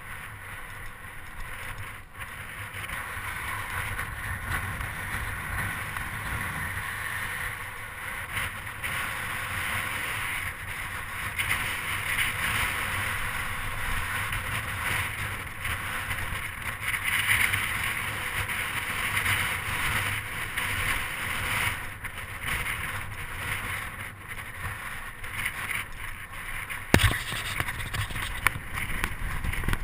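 Wind rushing over the microphone of a camera on a moving bicycle, with tyre and road rumble underneath, swelling and easing with speed. A sharp knock near the end, like a bump or rattle of the bike.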